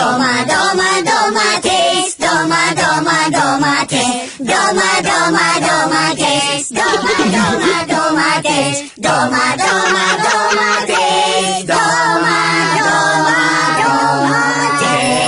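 A chorus of cartoon tomato characters' voices singing a cappella in harmony. They hold notes in phrases, with short breaks between them.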